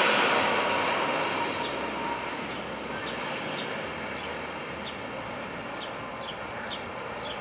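Jet airliner's engines rushing as it rolls down the runway, the noise fading over the first few seconds and then holding low. A bird gives short, falling chirps about twice a second over it.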